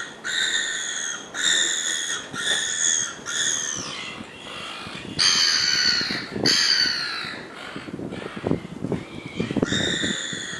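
Seagulls calling: a series of loud, harsh calls, each under a second long, several bending down in pitch at the end, with a pause in the middle before more calls near the end.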